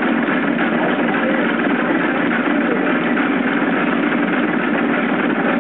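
A 250 lb Nazel air hammer running steadily, a continuous even mechanical din with no separate blows struck.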